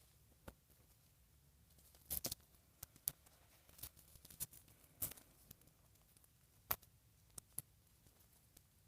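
Faint, scattered clicks and rustles of hands handling a doll and its snug dress, about a dozen small irregular sounds with the loudest cluster around two seconds in.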